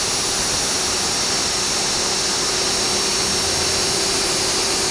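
DeWalt cordless drill running at a steady full speed with a steady whine, boring a countersunk pilot hole for a screw into the solid-wood skirt board.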